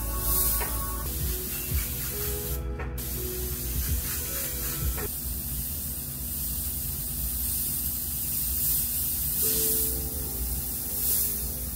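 Airbrush with a siphon-feed paint bottle spraying paint onto T-shirt fabric: a high air hiss that comes and goes in passes, cutting out briefly about three seconds in.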